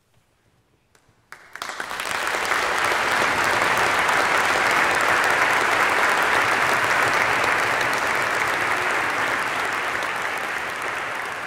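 Audience applauding: clapping breaks out suddenly about a second in after a pause, holds steady, and begins to fade near the end.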